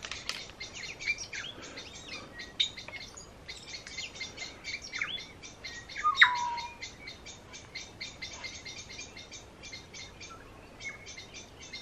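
Wild birdsong: a steady run of quick chirps and clicks, with one clear whistle falling in pitch about six seconds in.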